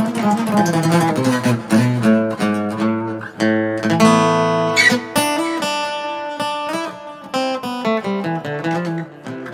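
Thin-bodied acoustic-electric guitar played lead: it opens on a falling run of single notes, then plucked single-note lines with a few chords.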